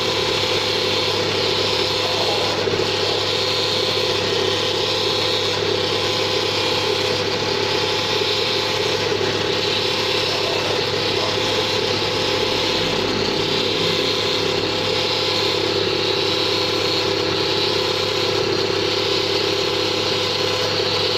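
1997 Honda Civic's engine running steadily with a persistent mechanical noise that the owner cannot identify.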